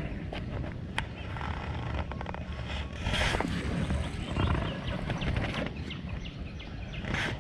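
Wind rumbling on the microphone, with a few small clicks and a brief hissing whir about three seconds in as a baitcasting reel pays out line on a cast.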